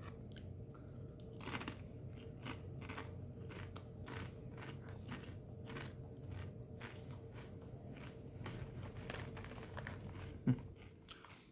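Sun Chips multigrain chips being chewed with a run of crisp crunches, and one brief low sound near the end.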